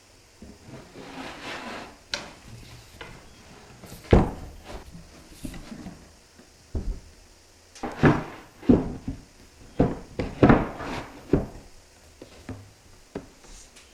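Burning logs crackling and popping in a fireplace: irregular sharp pops, coming thickest in the second half.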